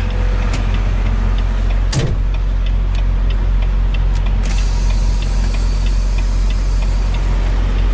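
Semi-truck diesel engine running steadily, heard from inside the cab. There is a single clunk about two seconds in, and faint regular ticking at about two to three a second after that. A steady hiss comes in about halfway through.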